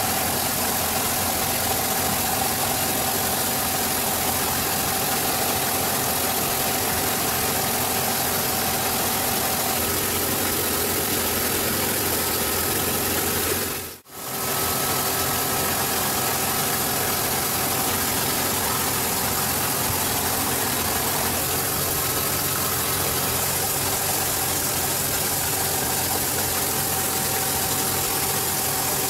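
Steady, loud machinery din of a ship's engine room: a constant noisy hum with a few steady tones in it. It drops out for a moment about halfway through.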